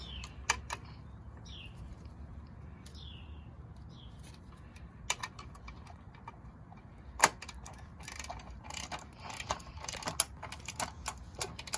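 Small sharp clicks and knocks of metal parts and tools being handled while an electric chainsaw's slipped chain and bar are worked on by hand. There is a loud knock about seven seconds in and a quick run of clicks over the last few seconds. A bird chirps several short descending notes in the first few seconds.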